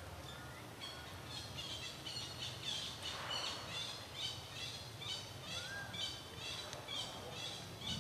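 A bird calling in the background: a rapid run of short, high chirps, about two to three a second, starting about a second in.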